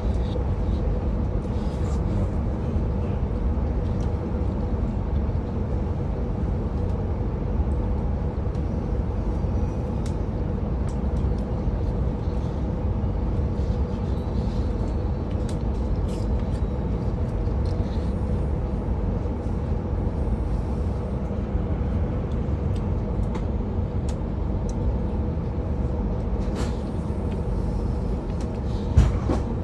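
Interior of a moving passenger train: a steady low rumble of wheels and running gear on the rails, with a constant faint hum and scattered light clicks and rattles.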